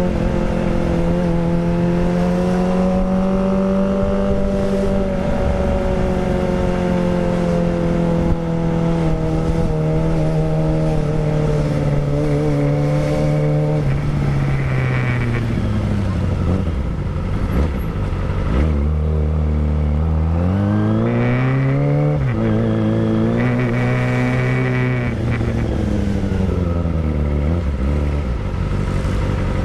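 Kawasaki Ninja ZX-25R's 250cc inline-four running through a Villan Pro 1 full-system racing exhaust on the move, with wind rushing past. It holds steady high revs, then falls away as the throttle is rolled off at about the middle, pulls back up through a gear change with a drop in pitch, and falls away again near the end.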